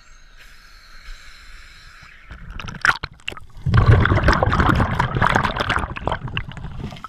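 Water lapping at the surface, then splashing as the camera goes under about three seconds in. After that comes a loud underwater rush and bubbling as the divers descend.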